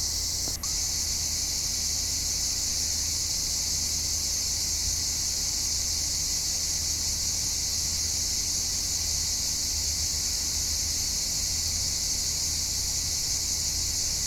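Steady chorus of insects chirring, a continuous high-pitched buzz with no break, over a low steady rumble.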